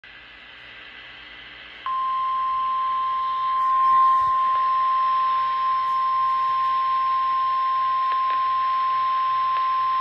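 NOAA Weather Radio's 1050 Hz warning alarm tone from a handheld radio's speaker: one steady, loud tone that starts abruptly about two seconds in, after faint radio hiss. The tone signals that an emergency warning broadcast is about to follow.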